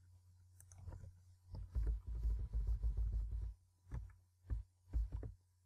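Computer keyboard keys pressed for an Alt + Shift + Down-arrow column selection, heard as dull low thumps: a quick run of presses, then three single presses about half a second apart. A faint steady hum lies underneath.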